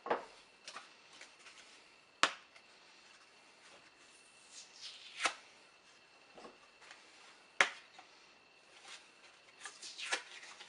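Drywall patch snapping as its gypsum core is broken along scored lines: four sharp cracks about two seconds apart, with fainter crumbling and rustling between and a run of small crackles near the end.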